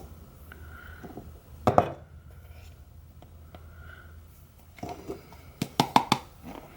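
Sharp knocks and clicks from measuring out baking soda and tipping it into a Keurig coffee maker's water reservoir: one sharp knock about two seconds in, then a quick run of taps and knocks near the end.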